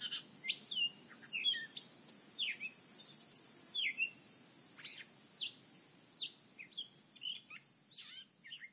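Birds chirping and calling: many short chirps and quick whistled slides, irregularly spaced, over a steady high-pitched whine and a faint low hum of outdoor ambience.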